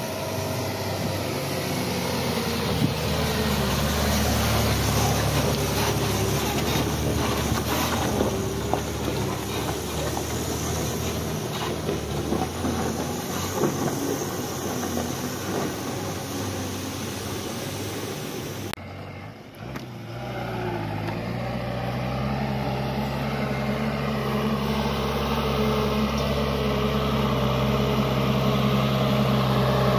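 Truck engines on a muddy road: a dumper truck's engine running as it drives through, then after a sudden cut about two-thirds in, a second truck's engine running steadily and growing louder as it comes closer.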